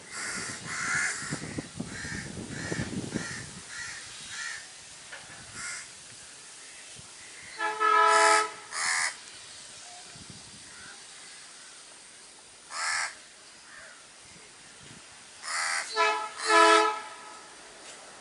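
Crows cawing over and over, then the horn of twin WDG3A ALCO diesel freight locomotives sounding a chord of several notes: two honks about eight seconds in and three honks in quick succession near the end, the loudest sound. The honking is the warning for an unmanned level crossing.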